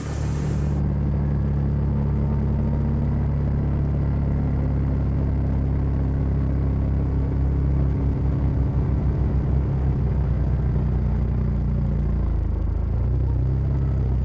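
Side-by-side UTV engine running steadily while driving along a trail, a low drone. Its pitch dips briefly about twelve seconds in, then picks up again.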